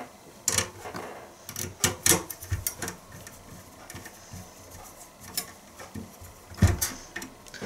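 Screwdriver driving a screw into the Synology DS415+ NAS's metal chassis: scattered clicks and light knocks of the tool and small metal parts, with a sharper knock near the end.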